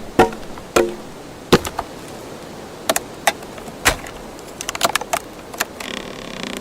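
Sharp wooden knocks and cracks, one at a time: two hollow, briefly ringing knocks in the first second, then single sharp snaps about a second apart, a quick run of small cracks near five seconds, and a short grating creak near the end.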